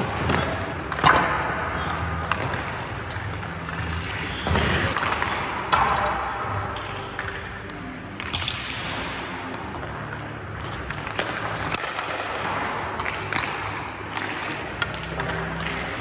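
Ice hockey skate blades scraping and carving on the ice, with several sharp clacks of sticks striking pucks spread through the stretch.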